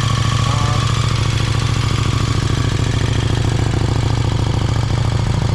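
KTM 1290 Super Duke R's 1301 cc V-twin idling steadily through a freshly fitted Austin Racing V3 250 slip-on silencer, about a minute after a cold start. The exhaust note is loud and even, with no revving.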